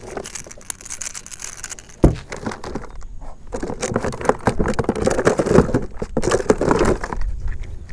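Handling noises as a freshly landed speckled trout is held in a kayak: clicks and scrapes, a sharp knock about two seconds in, then a busier stretch of rattling and rustling.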